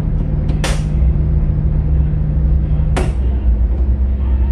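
Tugboat's diesel engines running heard from the wheelhouse, with two short air hisses about two and a half seconds apart as the engine-control levers are shifted. One engine tone drops out at the second hiss.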